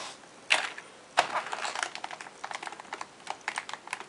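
Computer keyboard keys clacking as they are pressed down: two sharp clacks, then a fast irregular run of key clicks.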